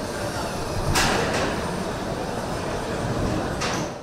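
Steady machinery din of a car assembly plant floor, with two short bursts of hiss, one about a second in and one near the end, before the sound cuts off.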